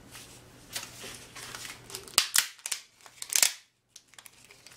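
Hands prying apart an orange plastic 3.5-inch floppy disk and pulling off its metal shutter: short scrapes and clicks of plastic and thin metal, with sharper snaps about two and a quarter and three and a half seconds in.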